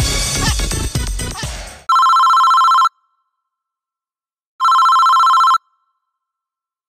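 Music cuts off about two seconds in. A phone ringtone follows: two trilling rings about a second long, each a pair of steady tones, with silence between them.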